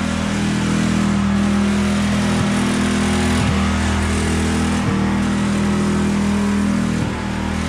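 Pressure washer running steadily, a constant motor hum under the hiss of water spray on the wooden trailer deck.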